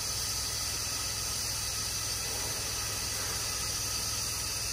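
Pressure washer wand with a downstream injector nozzle on a straight stream, spraying a steady hissing jet of sodium hypochlorite solution at low downstream pressure, with a low steady hum underneath.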